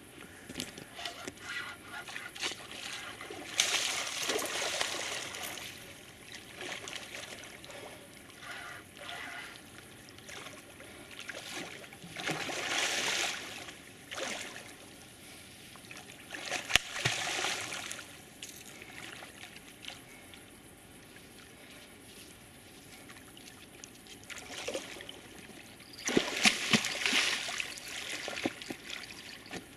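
Water splashing and sloshing in several separate bursts, the last and loudest near the end, from a hooked wels catfish thrashing while it is fought from the riverbank.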